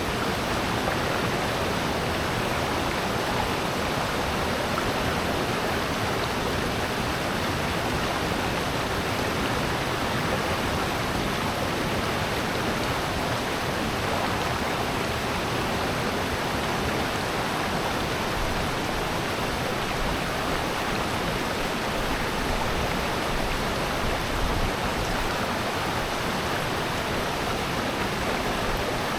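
Water of a rocky valley stream rushing steadily, a continuous even wash with no breaks.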